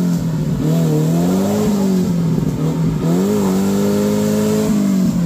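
Modified Maruti Suzuki Gypsy's engine revving up and down in repeated surges as the 4x4 crawls through deep mud, held high for a second or so before the revs drop near the end.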